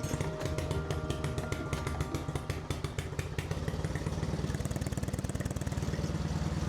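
Predator 224 single-cylinder four-stroke engine on a vintage minibike, running steadily with a fast, even firing pulse.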